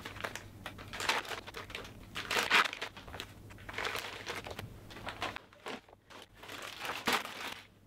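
Clear plastic sterile packaging crinkling and rustling as it is handled, in short irregular bouts that grow quieter over the last couple of seconds.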